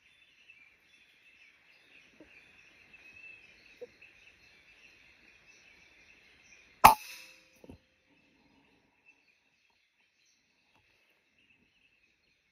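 A PCP air rifle fires once about seven seconds in, a single sharp crack, followed under a second later by a fainter knock. A steady high insect buzz runs underneath.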